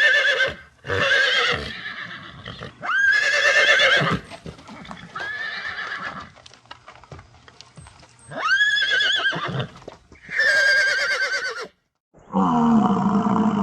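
A horse-like equine whinnying, about six times in a row, each call shooting up in pitch and then trembling as it falls away. Near the end a lower, rougher animal call begins.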